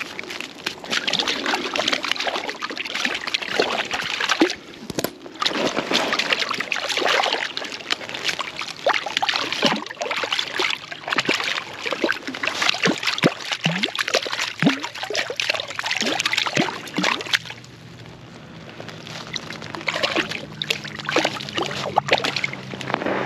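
Water sloshing, trickling and splashing in irregular spurts with small gurgling chirps. From about three quarters of the way through, the splashing eases and a motor's steady low hum comes in underneath.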